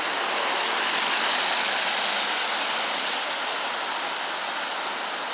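Steady rush of highway traffic, tyre and air noise from passing vehicles, with no single event standing out.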